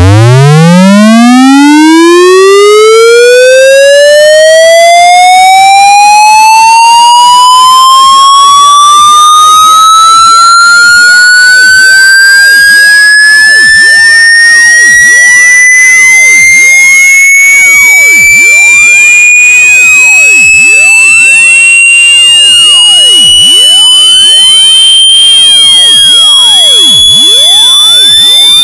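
Electronic tone sweep: a single pitch rising slowly and steadily from a deep hum to a piercing high whine, very loud and harshly distorted from extreme gain boosting.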